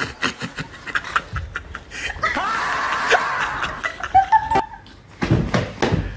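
A young woman laughing in short, rapid bursts.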